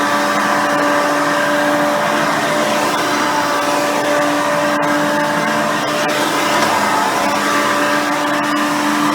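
Hoover Elite 350 upright vacuum, with its 5-amp motor, replacement seven-blade fan and soft nylon-bristle brush roll, running steadily with a steady whine over the roar of its airflow.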